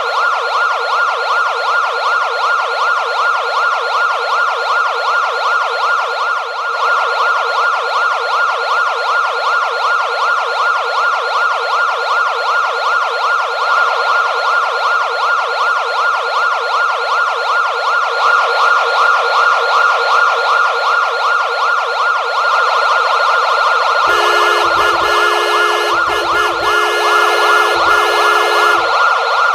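Police car siren sounding continuously in a fast warbling yelp. With about five seconds to go, a second layer of steady horn-like tones joins in and cuts in and out.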